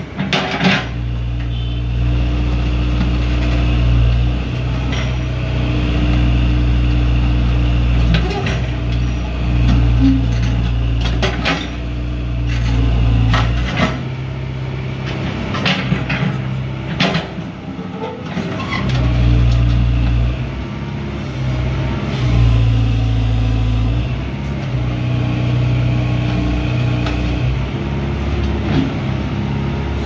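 Backhoe loader's diesel engine running under load, its level swelling and easing as the digging arm works, with the steel bucket knocking and scraping on broken asphalt and dirt several times.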